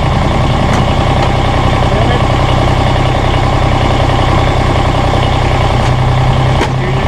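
Massey Ferguson GC1725M sub-compact tractor's diesel engine running steadily at idle, with a single sharp click near the end.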